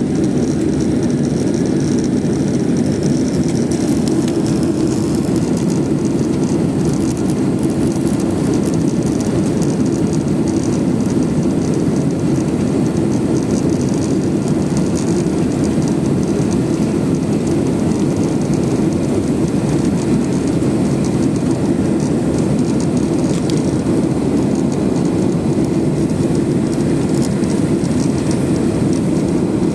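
Steady jet engine and rushing airflow noise heard inside an airliner cabin, the plane climbing just after takeoff.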